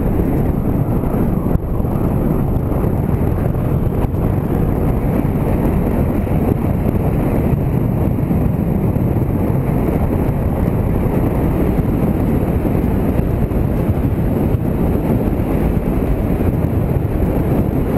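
Steady, low wind rush over the microphone of a camera on a moving motorcycle, mixed with the bike's engine and road noise.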